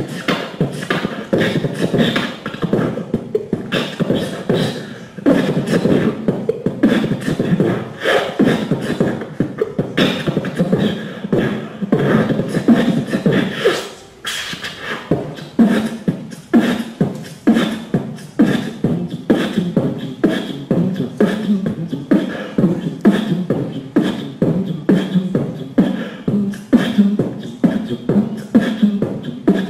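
Beatboxing into a handheld microphone: a steady rhythm of vocal kick, snare and click sounds over a hummed bass line, with a brief break about fourteen seconds in.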